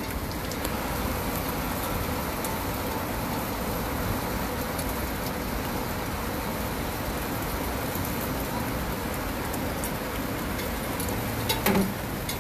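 Steady hiss of heavy rain mixed with distant city traffic, with a short knock near the end.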